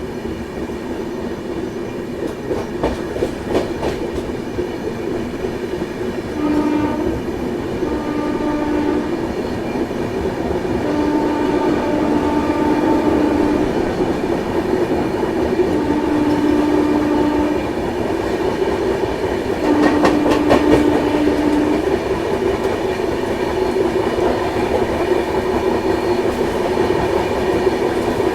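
An Indian Railways train running on the track with wheel clatter, getting gradually louder, while a locomotive horn sounds a series of about five blasts, short ones and longer ones, starting about six seconds in.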